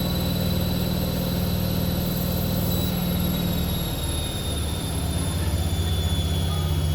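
Continental Edison washing machine in its spin cycle: the drum turns at high speed with a steady low hum and a thin, high motor whine that drifts slightly lower in pitch from about halfway in.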